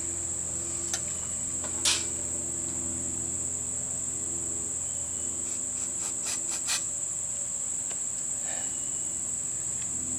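Steady high-pitched insect chirring, with a few faint clicks and knocks, the loudest about two seconds in and a quick cluster around six to seven seconds.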